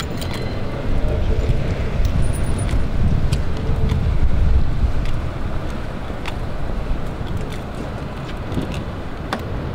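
Steady low rumbling outdoor city noise that swells a few seconds in and then eases, with a few faint clicks.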